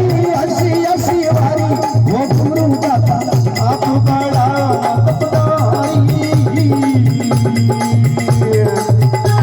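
Devotional folk song music: a wavering melody line over a steady, evenly repeating percussion beat.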